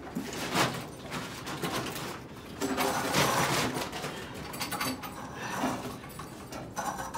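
Heavy homemade cross-country ski-trail groomer being hauled and shoved into place inside a wooden shed: irregular scraping and knocking, loudest about three seconds in.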